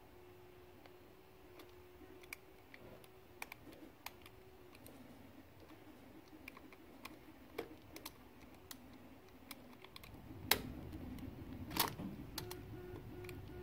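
Razor knife blade cutting through the thin metal cell tabs at their welds on a Chevy Volt battery module: scattered small clicks and scratches, with two sharper clicks near the end.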